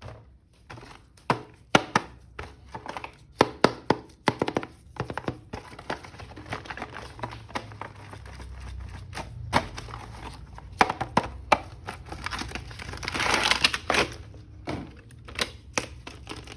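An action figure being unpacked by hand: a run of sharp plastic clicks and knocks, with a longer crinkle of packaging about 13 seconds in.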